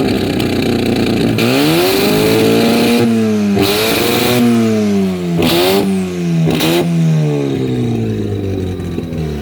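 Rotary engine free-revved four times, its pitch rising quickly and falling back each time, then easing down near the end. It is running on the owner's own tune, which he says is working and sounding very good.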